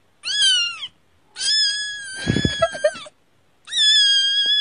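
Three high-pitched cat meows from a meme sound clip: a short one that rises and falls, then two long, level cries.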